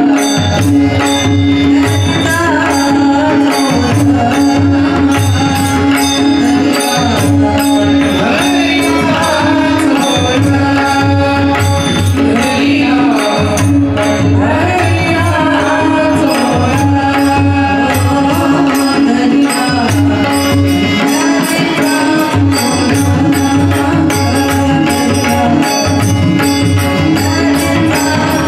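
Marathi devotional abhang sung by women over a steady drone, with harmonium, tabla and small hand cymbals keeping an even beat; the singing is clearest in the middle of the passage.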